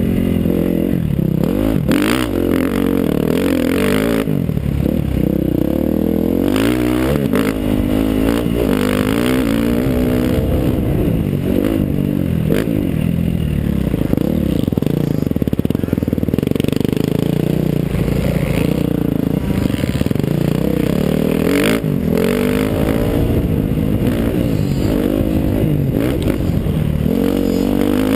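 KTM 350 SX-F's single-cylinder four-stroke engine revving hard and dropping back again and again as the motocross bike is ridden around a dirt track, its pitch rising and falling with throttle and gear changes. A few sharp knocks cut through the engine noise.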